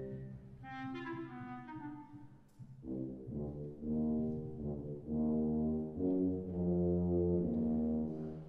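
Symphonic wind band playing: a quieter descending line of higher notes in the first two seconds, then brass chords entering about three seconds in, played as a series of held phrases with short breaks between them.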